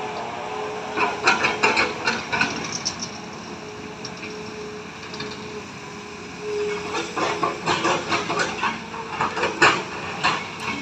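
Heavy diesel machinery running steadily at a log-handling site. Over it come two bursts of sharp wooden knocks and clatter, about a second in and again from about seven seconds, as logs are moved and bang together.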